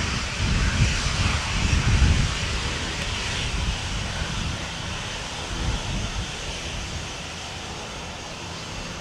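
Boeing 737-800's CFM56-7B jet engines running at taxi thrust, a steady hiss, with gusts of wind buffeting the microphone, strongest in the first couple of seconds.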